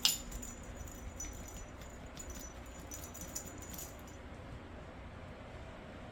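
Metal dog tags jingling on a collar as a dog moves: one loud clink at the start, then light jingling that stops about four seconds in.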